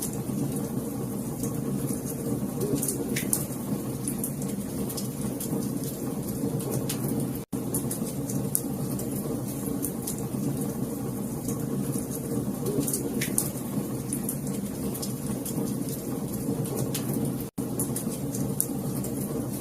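Wood fire crackling in a fireplace: a steady low rumble of flames with scattered sharp pops. The sound cuts out completely for an instant twice, about seven and a half and seventeen and a half seconds in.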